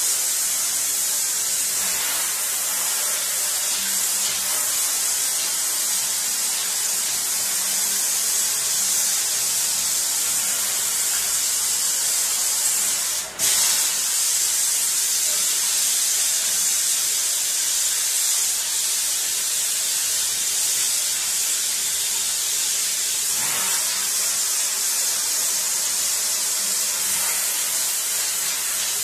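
Water spraying steadily from a handheld sink spray nozzle onto a print in a stainless-steel sink, rinsing excess oil paint off a gumoil print. The hiss breaks off for a moment a little under halfway through.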